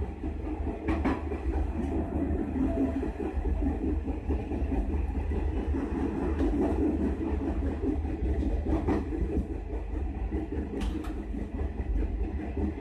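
Rapid passenger train running along the track, heard from the rear of its last carriage: a steady rumble of wheels on rail, broken by a few sharp clicks.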